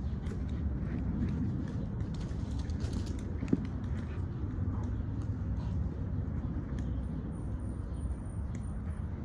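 An American Pit Bull Terrier's paws scuffing and thudding on bare dirt and grass as it chases a flirt pole lure, with one sharper knock about three and a half seconds in. A steady low rumble lies under it all.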